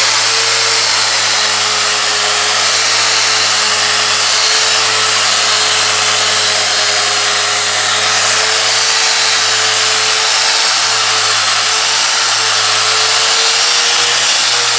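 Electric angle grinder running steadily at full speed, its 50-grit dry resin diamond polishing pad grinding on marble with no water.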